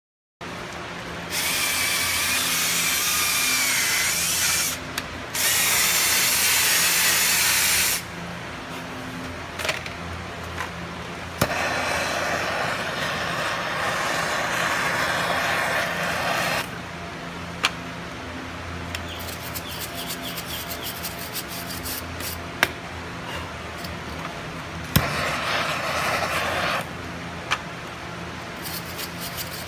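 Handheld gas torch hissing in four bursts of a few seconds each as its flame is played over a horse's hoof, with a few sharp clicks between bursts and a steady low hum underneath.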